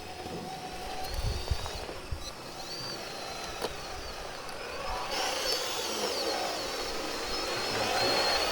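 Electric motors and gearboxes of radio-controlled model trucks and tractors whining. The pitch rises and falls as they speed up and slow down. The whine grows louder from about halfway through.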